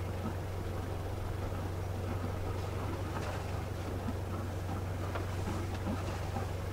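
Sailing yacht's inboard diesel engine running steadily at low revs, a low even hum, with faint water and wind noise over it.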